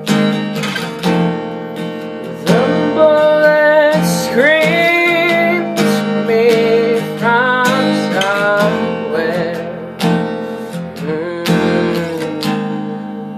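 Acoustic guitar strummed and picked, strong chord strokes every second or two with the notes ringing between them, dying away near the end.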